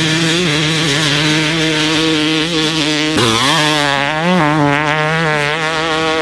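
Yamaha YZ250 two-stroke single-cylinder motocross engine, bored out to 300cc with an Athena kit, running hard under load. It holds a steady high pitch, breaks off abruptly about three seconds in, and then revs up and down repeatedly as the bike is ridden on the track.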